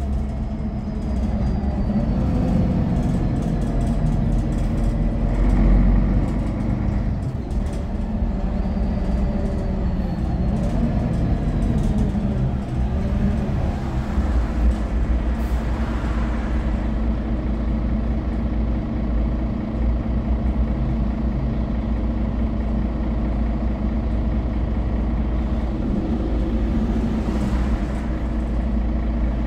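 Mercedes-Benz Citaro G articulated bus with a Voith automatic gearbox, heard from inside the passenger cabin while driving: a steady diesel engine and drivetrain drone under road noise, the engine note shifting in pitch now and then.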